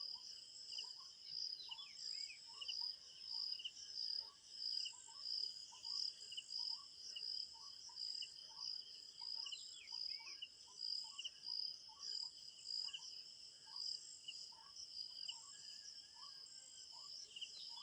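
Forest ambience of crickets chirping in a steady, high, pulsing chorus. Under it a short low note repeats a little more than once a second, and a few quick bird chirps come about two seconds in, near the middle and near the end.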